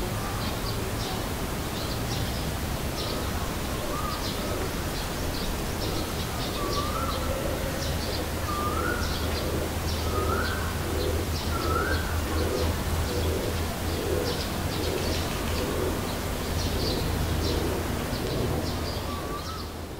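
Birds calling: many short high chirps throughout, a rising whistled note repeated about every two seconds in the first half, and a low pulsing series of coos through the second half, over a steady low hum.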